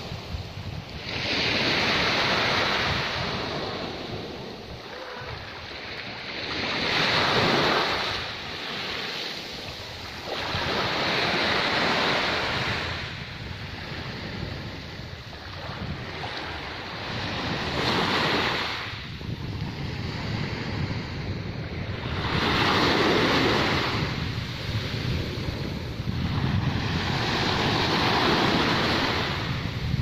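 Small waves breaking and washing up a sandy, pebbly shore, each wash swelling and fading, about six in all, every four to five seconds.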